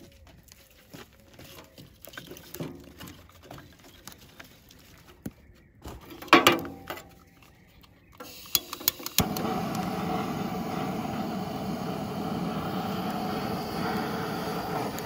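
Firewood knocking and clattering in a steel barbecue grill, then a few sharp clicks about nine seconds in and a handheld gas torch burning with a steady hiss against the logs to light them.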